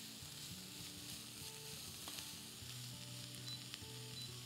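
Diced carrot and zucchini sizzling faintly in a saucepan as a spatula stirs them, with a few light scrapes and taps against the pan.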